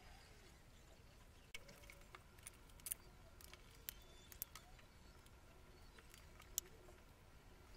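Near-silent room tone with a scatter of light, sharp clicks and taps from plastic CDs being handled and set down on a table. The loudest clicks come about three seconds in and near the end.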